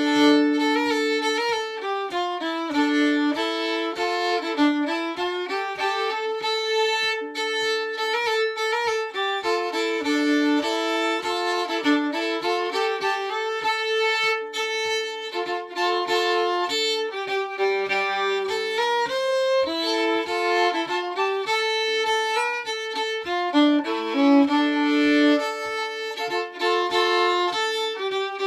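Solo violin playing a Swedish slängpolska, bowed, with much of it on two strings at once. A soft regular tap keeps the beat underneath.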